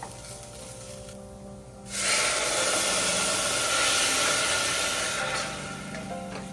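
A loud, steady hiss that starts suddenly about two seconds in and fades out about three seconds later, over soft background music.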